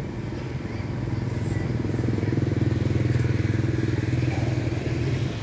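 Motorbike engine running close by with a fast, even pulse, growing louder toward the middle and easing slightly near the end.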